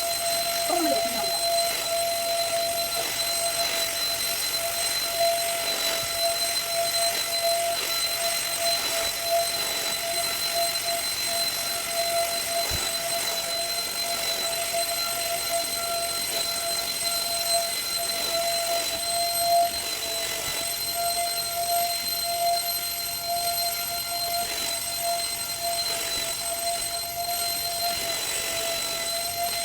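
Handheld UV-lamp bed vacuum cleaner running steadily: a steady motor whine over a hiss of airflow.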